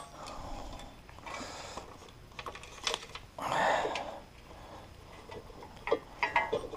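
Hand-handling noise of a motorcycle speed sensor's wire and plastic connector being worked through a tight gap: light rustling and small clicks and taps, with a short louder rush of noise about three and a half seconds in and a few sharper clicks near the end.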